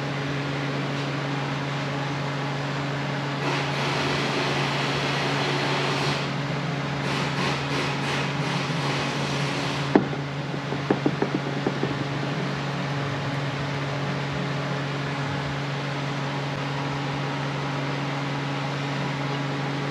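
Steady electric hum of shop ventilation running throughout, with a soft hiss for a few seconds in the first half. About ten seconds in there is one sharp click, then a few lighter taps.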